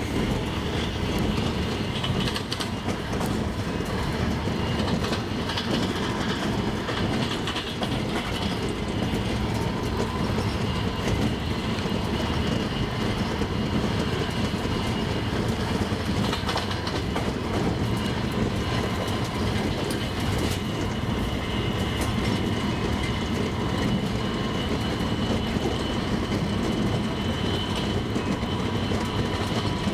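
Double-decker passenger train running at speed, a steady rumble with the clatter of its wheels over the rails.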